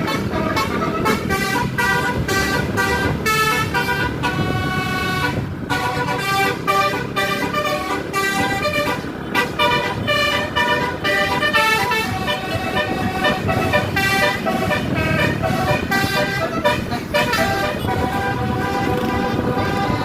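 Basuri telolet bus horn playing a quick tune: loud, steady notes that change pitch several times a second, with a few brief breaks, over a low rumble.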